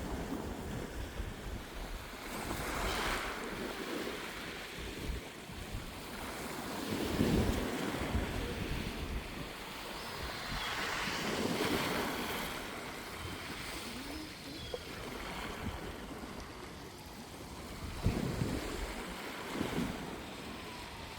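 Sea waves washing, swelling every few seconds, with wind buffeting the microphone.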